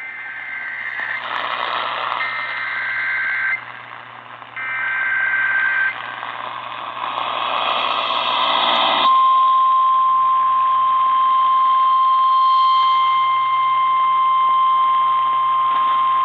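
NOAA Weather Radio alert heard through a hissy radio receiver: three short bursts of the warbling two-tone SAME data header, a stretch of static, then from about nine seconds in the single steady warning alarm tone that announces a warning message is coming.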